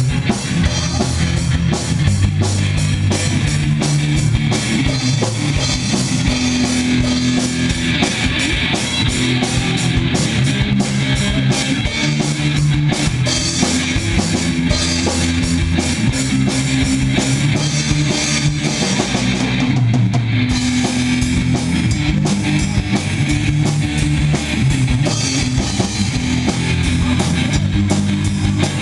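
Live rock band playing: a drum kit with dense, steady cymbal and drum hits over a bass line and guitar.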